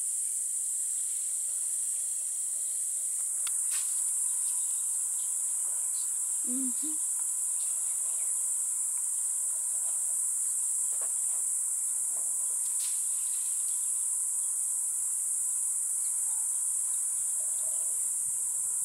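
Steady high-pitched insect chorus droning without a break, with a few faint ticks over it.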